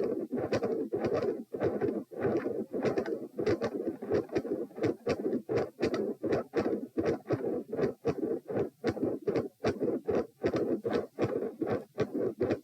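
Heart sounds picked up against the chest of a person lying down during repeated Valsalva manoeuvres. Short knocks of the heartbeat come a few times a second, over a steady rough whooshing noise.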